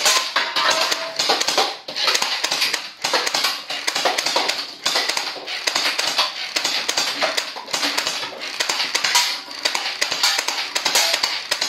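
Electric fully automatic toy SCAR gel blaster firing crystal water-gel beads in long rapid bursts with short breaks between them, its motor and gearbox clattering as the beads smack into paper-cup and bottle targets. Background music plays along.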